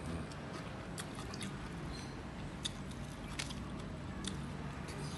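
Eating sounds: chewing and small sharp clicks as fingers pick apart a grilled Indian mackerel, a handful of crisp ticks over a steady low hum.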